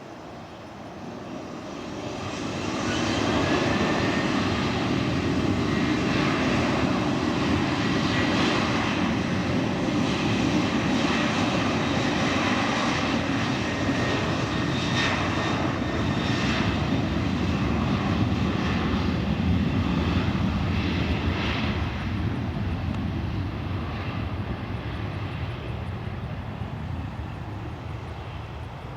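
Twin CFM56 turbofan engines of a Qantas Boeing 737-800 at takeoff power during its takeoff roll and climb-out. The engine noise swells over the first few seconds, holds loud and steady, then fades gradually in the last several seconds as the jet climbs away.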